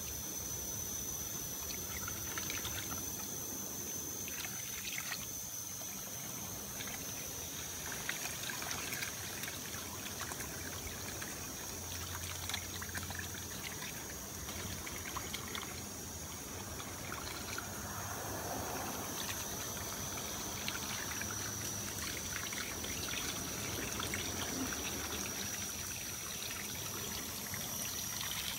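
Water trickling and pouring from a garden hose end onto muddy soil, with scattered light clicks and splashes as a raccoon paws at the hose. A faint steady high tone runs underneath.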